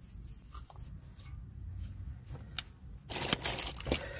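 A few faint clicks of hands handling parts, then about three seconds in a sudden loud crinkling and rustling begins and keeps going.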